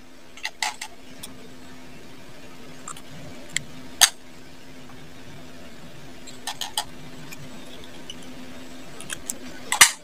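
Scattered small clicks and clinks of hands handling a hair clipper's wires and taped switch connections, loudest in a cluster near the end, over a steady low hum.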